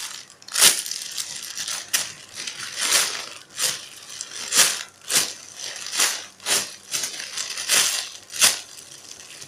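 Clear plastic bag crinkling as a squishy toy is squeezed and turned inside it: a dozen or so sharp crackles, one every second or less.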